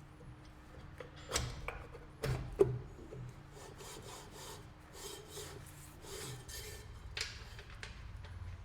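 Rubbing and scraping of metal parts with a few sharp knocks, the loudest about two and a half seconds in, as a rear brake drum is worked onto a car's hub.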